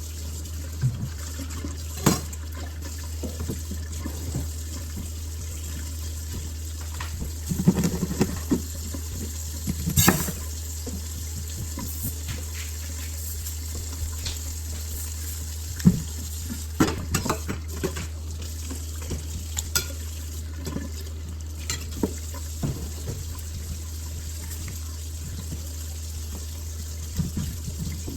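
Kitchen sounds: water running at the sink with the knocks and clatter of dishes and utensils, over a steady low hum. Sharp knocks come every few seconds, the loudest about 8 and 10 seconds in.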